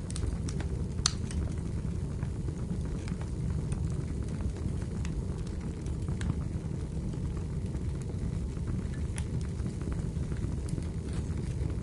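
Wood fire burning in a fireplace: a steady low rumble with scattered sharp crackles and pops from the burning logs, the strongest about a second in.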